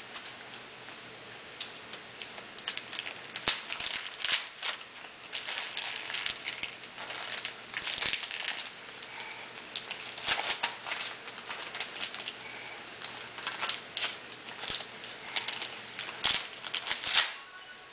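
Gift wrapping paper crinkling and tearing as a small child's hands unwrap a present, in irregular bursts of rustling. The loudest burst comes near the end.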